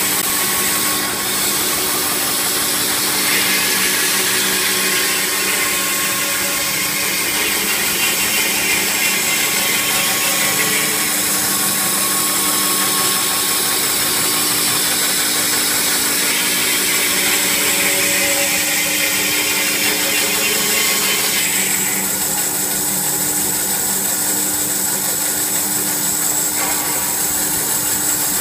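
CNC curve band saw running and cutting through a stack of wooden boards along a wavy line: a steady motor hum under the hiss of the blade in the wood. The higher cutting hiss grows louder and quieter several times during the cut.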